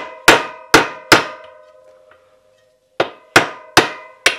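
Hard plastic mallet tapping the axle of a DT Swiss-style rear hub, using the axle as a punch to knock out the non-drive-side cartridge bearing. Two sets of about four sharp taps with a pause of over a second between, each tap leaving a short metallic ring.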